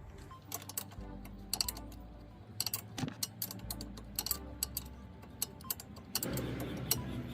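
Background music, with irregular sharp clicks and clinks of metal tools and parts being handled.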